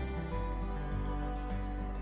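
Instrumental background music: sustained notes over a bass line that changes about a third of a second in.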